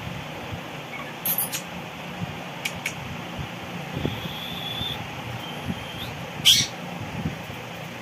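Indian ringneck parakeet giving a few short, sharp high calls, the loudest about six and a half seconds in, with a thin whistle-like note in the middle, over a steady fan-like hiss and soft knocks.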